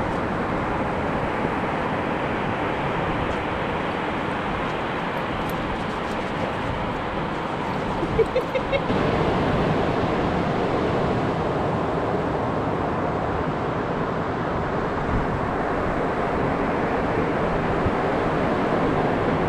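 Steady rushing noise of wind and ocean surf, with a few short squeaks about eight seconds in.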